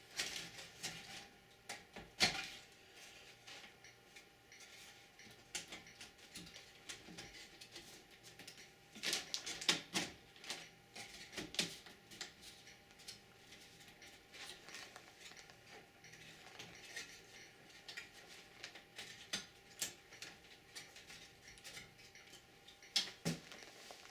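Scattered clicks, taps and light knocks of metal and plastic computer parts being handled and fitted into a desktop PC case, busiest about nine to twelve seconds in and again near the end.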